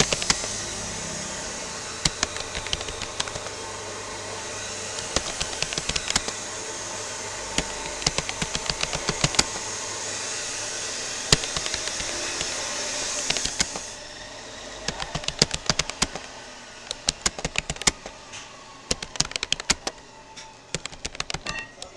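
Keystrokes on a Rapoo computer keyboard during touch typing: irregular clicks, several a second. A steady rushing noise sits under the clicks and cuts off about two-thirds of the way through.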